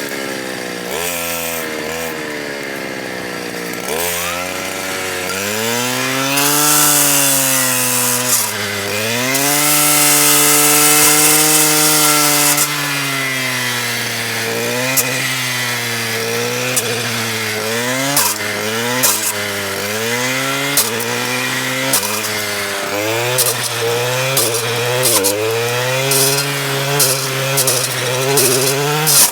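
STIHL KA 120 R power head driving a circular saw blade fitted with chainsaw teeth, cutting wood. The motor's pitch repeatedly drops as the blade bites in and climbs back as it frees, with sharp clicks more and more often in the second half.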